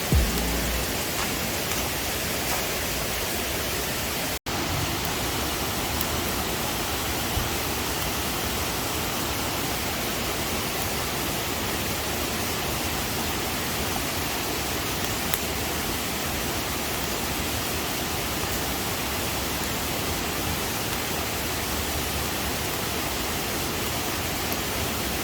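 Steady rush of flowing water from a mountain stream, an even hiss with a brief break about four seconds in.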